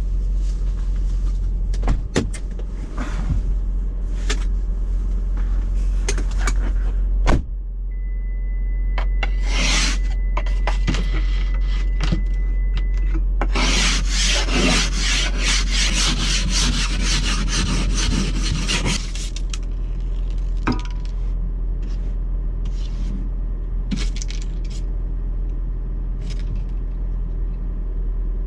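Windshield wipers rubbing and scraping across a frosted windshield in repeated strokes, heaviest in the middle stretch, over the steady low hum of the idling car.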